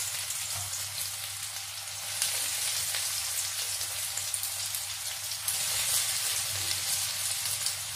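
Breadcrumb-coated soya kababs shallow-frying in hot oil in a pan: a steady sizzle with dense fine crackling, swelling a little twice.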